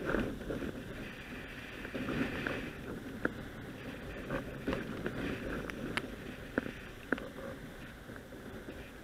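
A windsurf board planing fast over lake water: a steady rushing wash of water and spray with wind buffeting the microphone, broken by scattered sharp ticks.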